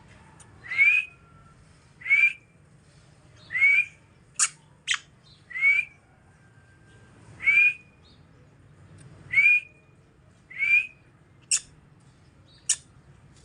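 Parrot giving a series of short whistles that slide upward, seven in all, about one every second and a half, with a few very brief sharp clicks in between.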